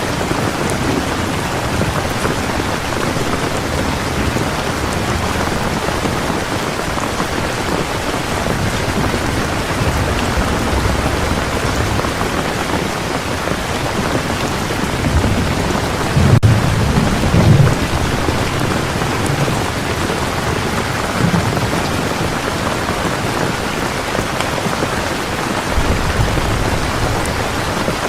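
Heavy rain falling steadily, with low rumbles of thunder rising a little past the middle.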